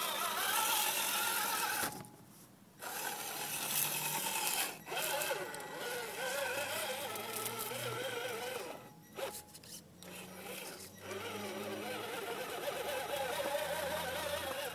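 Electric motor and geared drivetrain of a scale RC rock crawler whining as it crawls over rocks, the pitch wavering with the throttle. It cuts out briefly about two seconds in and again around nine seconds.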